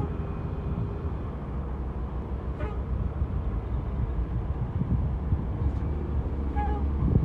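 Heavy diesel engines running with a steady low rumble: a tri-axle dump truck standing beside a working Cat 330C excavator. A few faint clinks come through partway in.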